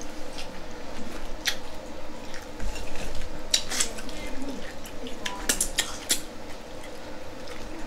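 Eating sounds from a seafood boil: scattered sharp clicks and cracks of shells, cutlery and dishes being handled, a few at a time.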